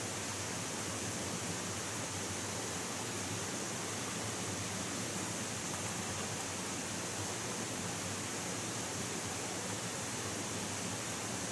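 Steady rushing of flowing water, a spring or stream running without a break.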